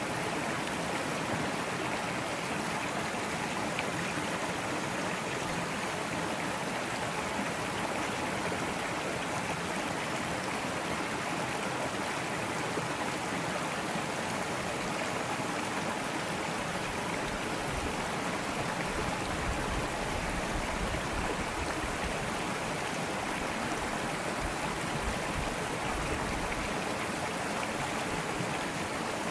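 Small forest brook running steadily, its water splashing and rushing over a low rocky cascade.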